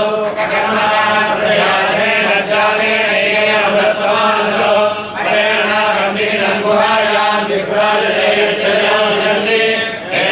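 Several voices chanting devotional verses together in unison, in long phrases with brief pauses between them.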